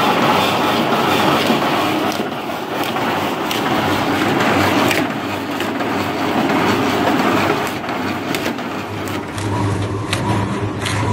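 Electric meat-dicing machine running: a steady mechanical rattle with repeated sharp clacks as it cuts a carcass section into cubes. About nine seconds in, the sound cuts to a second dicing machine with a steady low hum under its clicking.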